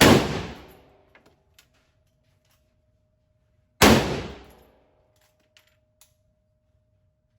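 Two gunshots, one at the very start and one about four seconds later, each followed by a ringing echo that dies away within about a second. A few faint clicks come between and after them.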